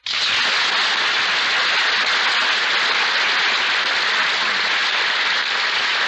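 Studio audience applause on an old radio recording, starting abruptly and holding steady throughout.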